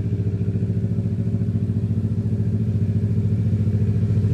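Kawasaki Ninja 650's parallel-twin engine running steadily through a DRIFT XAUST stainless full aftermarket exhaust, with an even pulsing beat that grows slightly louder toward the end.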